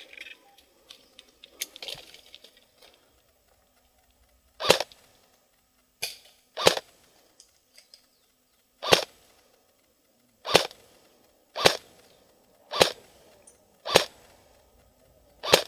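Airsoft gun firing single shots, nine sharp cracks spaced irregularly about a second apart, starting a few seconds in. Before the shooting there are only faint rustles.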